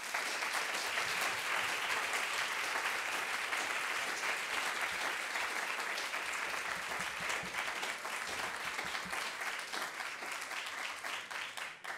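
Audience applauding: many people clapping in a dense, steady patter that thins slightly and stops near the end.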